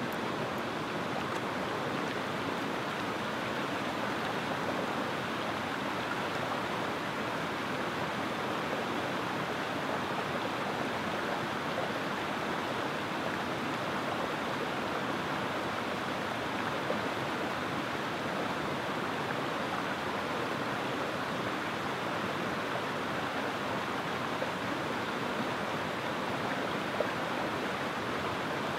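Shallow rocky creek running over stones and small cascades: a steady rush of water, with a few faint ticks about two-thirds of the way in and near the end.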